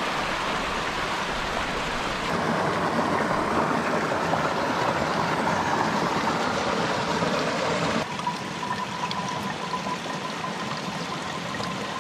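Shallow rocky stream running over stones, with water gurgling into a soft water-filter pouch as it is held under the surface and filled.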